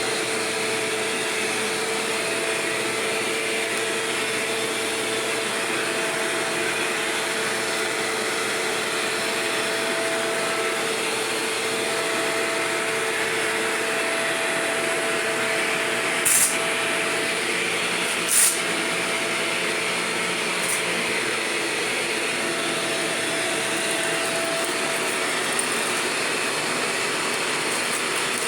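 Shark Rotator upright vacuum cleaner running steadily, a constant motor noise with a steady hum. About halfway through come three short, sharp clicks.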